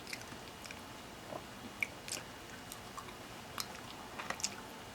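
Faint close-up chewing and mouth sounds: scattered small wet clicks and smacks, a few a second at most.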